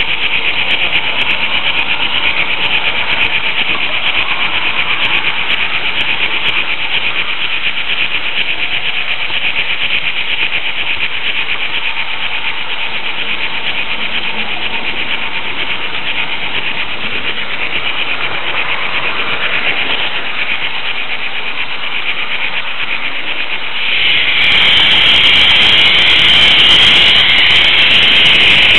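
Märklin H0 model train rolling along the track, heard from a camera riding on one of its flat cars: a steady high whirring of wheels and motor, which grows louder and brighter near the end.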